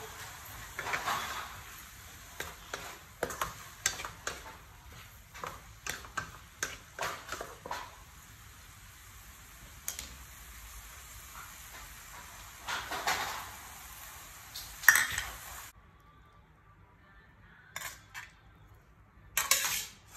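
Metal spatula scraping and clacking against a wok while duck-egg strips and pickled cabbage are stir-fried, over a steady light frying hiss. The hiss stops abruptly about three-quarters in, and a few more clinks follow near the end.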